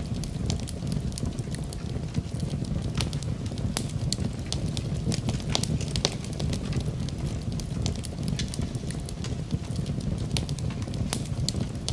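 Wood fire in a fireplace crackling, with sharp irregular pops and snaps over a steady low rumble.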